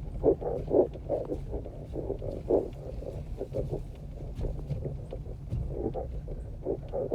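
Small car driving slowly over a rough, rocky dirt road: a steady low rumble with irregular thuds and frequent short knocks and clatter from the tyres and suspension.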